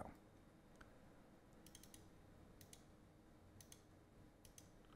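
Faint computer mouse clicks over near silence, several of them in quick pairs, as settings are clicked through in a software dialog.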